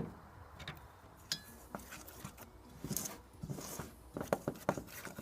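Irregular clinks and knocks of cooking utensils and dishes being handled, with a sharp knock at the start, one ringing metallic clink about a second in, and a quicker run of knocks near the end.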